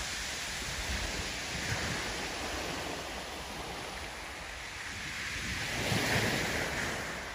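Steady rushing outdoor noise that swells and then fades again about six seconds in.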